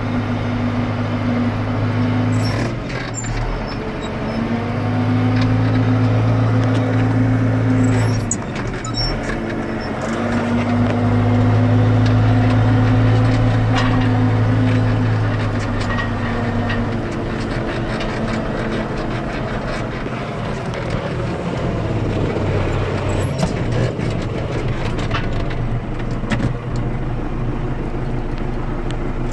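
John Deere 6320 tractor's diesel engine running, heard inside the cab. Its note rises and holds for stretches of several seconds while the front loader is worked, then drops back between, with a few sharp knocks and rattles.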